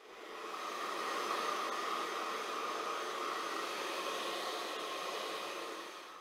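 Handheld hair dryer blowing steadily, fading in at the start and out near the end.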